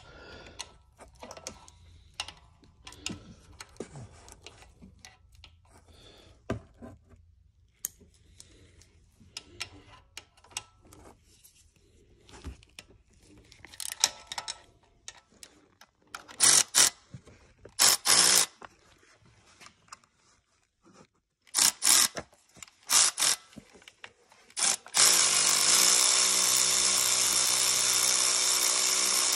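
Handheld power tool spinning out the belt tensioner bolt. After quiet clicks of tools being handled, it runs in several short bursts past the halfway point, then steadily for about four seconds at the end.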